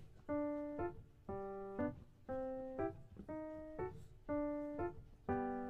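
Background music: a tune of held notes, each followed by a quick short note, repeating about once a second.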